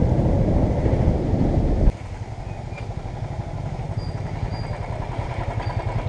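Motorcycle engine running as the bike rolls along a dirt track, with a dense rumble. About two seconds in, the sound drops suddenly to motorcycle engines idling with a steady, even pulse.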